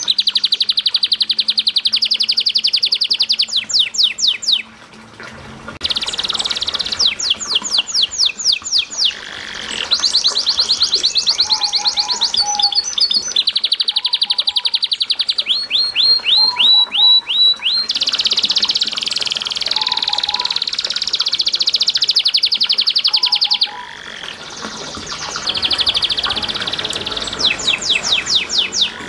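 Canary singing a long, loud song of rapid rolling trills and fast sweeping note series, pausing briefly twice.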